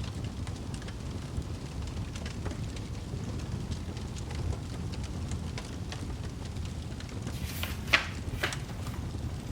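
Fireplace fire burning: a steady low rumble with scattered small crackles and pops, and a louder cluster of sharp crackling noises near the end.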